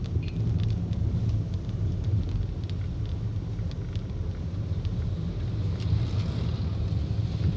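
Low, steady rumble of a car's engine and tyres heard from inside the cabin while driving slowly on a paved road, with faint scattered ticks. A brief rise in hiss comes about six seconds in.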